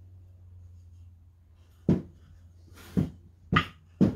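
Wooden canvas stretcher bars knocked and set down on a cloth-covered workbench: four short wooden knocks in the second half.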